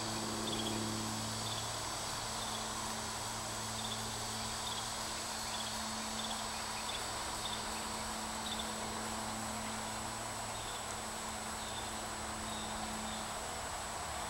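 Outdoor ambience: a steady high insect drone with faint short chirps repeating every second or so, over a low steady hum.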